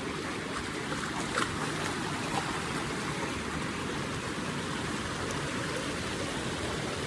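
Steady rushing of a small river's flowing water, with a couple of faint brief knocks about a second and a half and two and a half seconds in.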